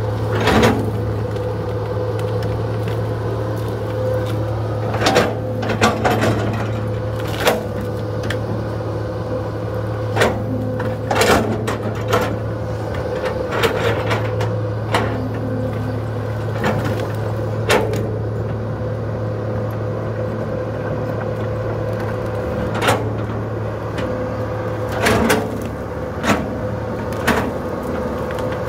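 Hydraulic excavator's diesel engine running steadily at working speed with a steady whine, broken by frequent, irregular sharp knocks and cracks from the machine working the ground.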